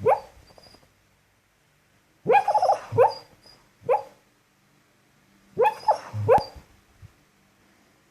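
Beagle barking in her sleep: short barks in small bunches a couple of seconds apart, one at the start, a few around two to three seconds in, one near four seconds and another bunch at about six seconds.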